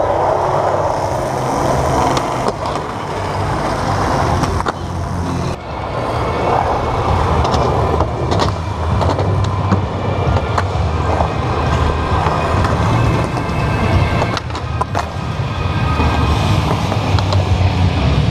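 Skateboard wheels rolling on a smooth skatepark floor, a steady low rumble, with the sharp clack of boards popping and landing now and then.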